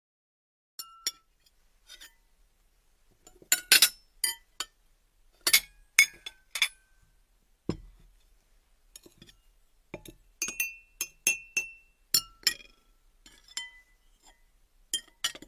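Irregular clinks and light knocks of glassware or dishes being handled, some with a brief ringing tone, with one duller thud about halfway through.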